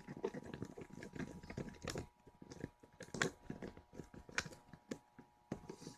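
Irregular small clicks and crackles of close hand handling, busiest in the first two seconds and sparser after.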